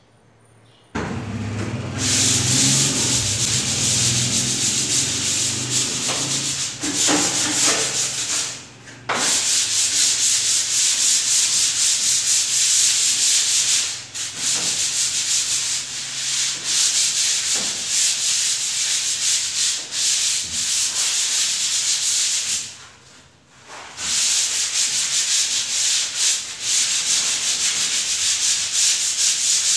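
Sanding of the putty-filled joints on a gypsum-board ceiling, a steady scraping hiss. It stops briefly about 9 seconds in and again around 23 seconds.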